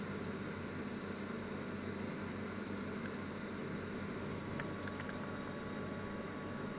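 Panasonic inverter microwave oven running: a steady hum and whir, with a few faint ticks about five seconds in.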